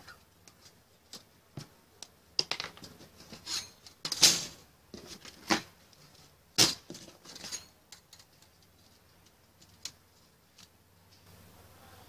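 Thin sheet-metal strips handled on a tiled bench: clinking, knocking and scraping as they slide over one another and over the tile while being gathered into a stack. The noises come thickest from about two to eight seconds in, loudest about four seconds in, then only a few faint ticks.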